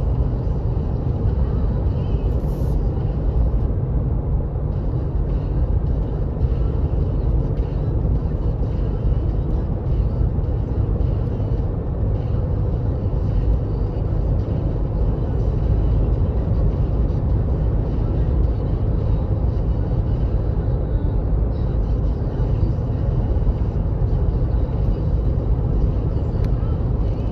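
Road noise inside a car's cabin while driving on an asphalt road: tyres and engine heard as a low, even rumble that holds steady throughout.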